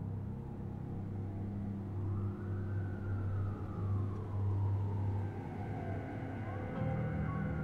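Film soundtrack drone: a steady low hum, with a faint high tone that slides up and then slowly down through the middle.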